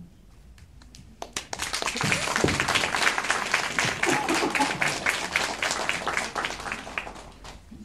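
Audience applauding at the end of a song. The clapping starts about a second and a half in, holds loud, and fades out near the end.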